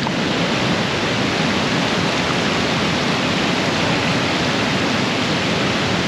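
Whitewater river rapids rushing over boulders: a steady, loud, even roar of falling water.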